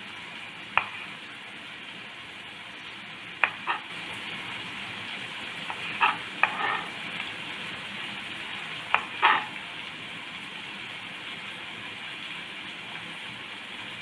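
Kitchen knife slicing green chillies on a wooden chopping board, a sharp tap each time the blade meets the board, about seven taps, several in quick pairs. Under them runs the steady sizzle of a pan of onions and tomatoes frying.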